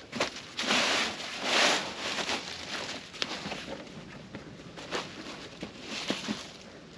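A foam roll mat being unrolled and rolled back the other way by hand on dry leaf litter so it lies flat: two broad rustling swishes in the first two seconds, then lighter scuffs and crackles of leaves.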